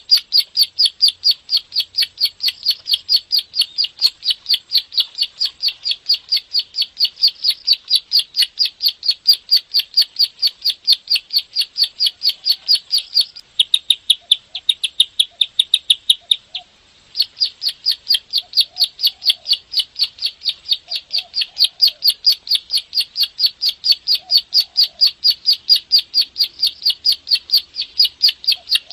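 A ciblek sawah (plain prinia) sings a long, rapid, machine-gun-like series of sharp clicking notes, about four a second. Around the middle the notes turn quicker and lower for about three seconds. After a brief break the original series resumes.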